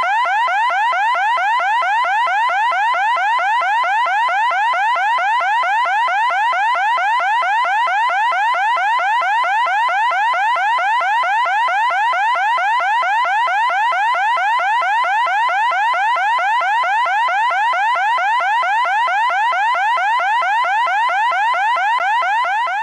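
Electronic siren sounding in rapid rising sweeps, several a second, repeating steadily without a break.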